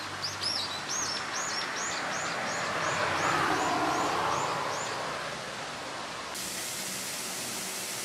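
A bird calling a quick run of about a dozen repeated high notes, each rising and falling, over steady outdoor noise. The noise swells and fades around the middle, and the calls stop about five seconds in.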